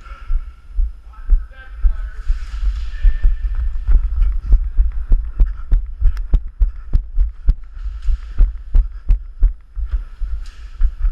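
Airsoft guns firing a string of sharp single shots, about three a second, starting a few seconds in and stopping near the end, over a steady low thumping and rumble of the camera being carried and buffeted.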